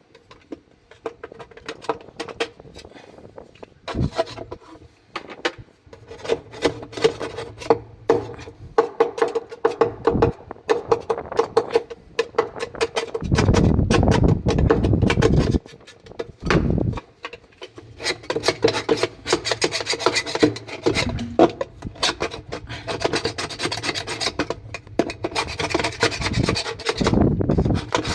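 Repeated, irregular scraping and rubbing strokes as the tub of a washing machine is scrubbed clean, with scattered knocks and clicks.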